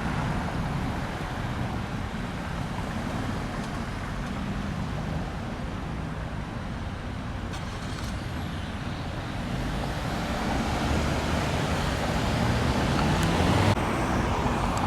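Road traffic noise: a steady low rumble of passing cars and trucks that grows a little louder in the second half.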